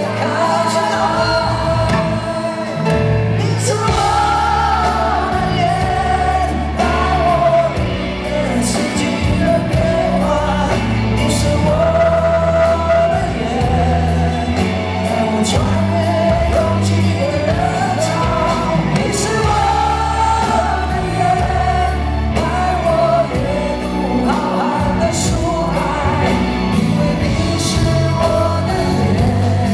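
Live pop-rock band playing through an arena sound system: singing over drums, bass, electric guitar and keyboards, with the bass and drums coming in about a second in.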